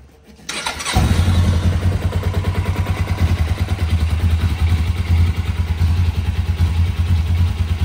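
A Suzuki GS500's 487 cc air-cooled parallel-twin engine is started on its electric starter and catches about a second in. It then idles steadily with an even, pulsing beat.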